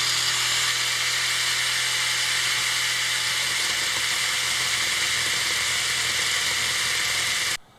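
Angle grinder cutting into a stainless steel ring on a shaft, a steady high grinding noise with a fixed whine that cuts off abruptly near the end.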